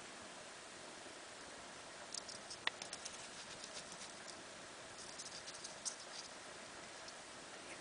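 Faint, irregular crackling and ticking from solder and flux under a soldering iron on a solar panel's bus wire, with one sharper click about a third of the way in.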